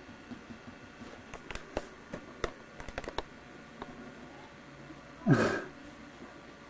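Fingernails tapping and scratching on a hardwood floor, an irregular run of quick clicks lasting about two seconds. About five seconds in comes a brief, louder breathy sound whose low pitch falls.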